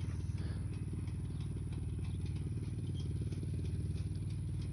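An engine idling steadily with an even, rapid low pulsing, with a few faint clicks over it.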